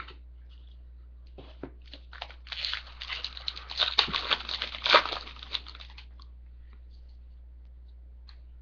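Foil trading-card pack wrapper crinkling and crackling as it is torn open. The crackles run from about a second and a half in to about six seconds, loudest near five seconds.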